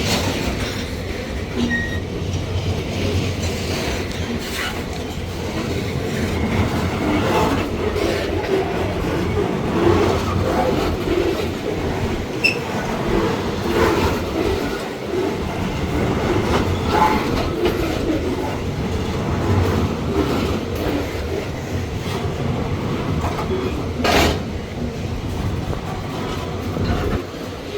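Freight train wagons rolling past: a steady rumble of wheels on rail, with frequent clicks and clanks as the wheels cross joints, and one sharp clank about 24 seconds in.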